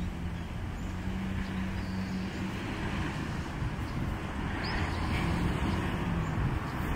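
Steady low rumble of distant motor traffic, with a faint hum under it. A single faint, high bird chirp comes about two-thirds of the way through.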